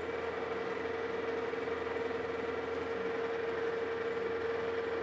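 Metal lathe running steadily, the workpiece spinning in the chuck, with a steady hum and an even whine. There is no change in the sound while the tool is brought up for the taper cut.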